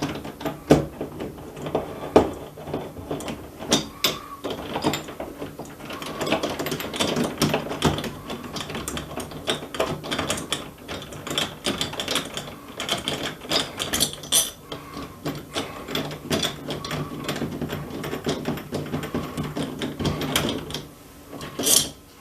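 A Phillips screwdriver backing out the long through-screws of a doorknob, with many small metallic clicks and scrapes of the screwdriver tip and screws.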